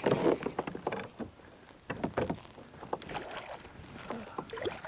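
Irregular knocks and handling noises on a kayak, coming in short bunches roughly a second apart.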